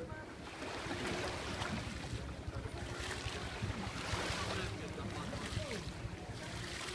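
Sea water washing and lapping in slow swells, with wind on the microphone and faint voices in the distance.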